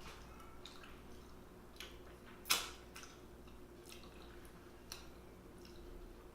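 Wet eating sounds: scattered smacks and squishes of someone chewing buttery seafood, with one sharp, louder click about two and a half seconds in.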